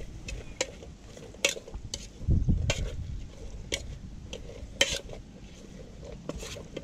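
A metal spoon stirring broth in a small camping pot, clinking against the pot's sides at irregular moments. A brief low rumble comes about two and a half seconds in.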